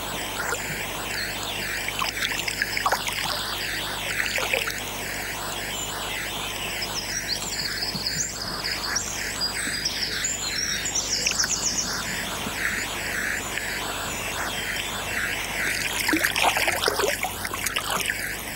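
River water running, with splashing from a hooked trout thrashing at the surface as it is drawn in, loudest near the end. Birds chirp faintly in the background.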